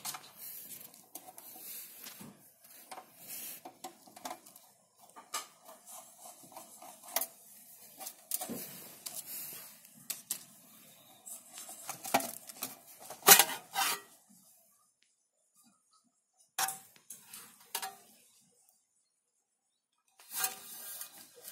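A screwdriver works the screws out of a computer power supply's sheet-metal cover, with light metallic scraping and clicking and a louder clink about 13 seconds in. Near the end there is a brief metal clatter as the cover is lifted off the chassis.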